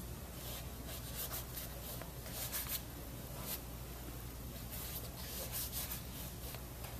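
A paintbrush scratching oil paint across canvas in short, irregular strokes, over a low steady hum.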